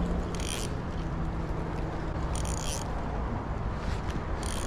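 Steady rumble of road traffic, with a low hum that fades over the first second or so. Three short, high hissing swishes come about two seconds apart.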